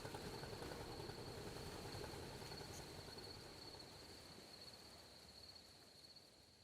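Insects trilling steadily in one high, finely pulsing tone over a soft even wash of background noise, the whole gradually fading out.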